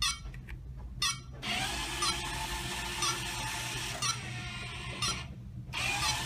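Small four-wheeled robot's electric drive motors whining as it drives, with a short tick about once a second. The whine starts after a few clicks, stops briefly about five seconds in, and starts again.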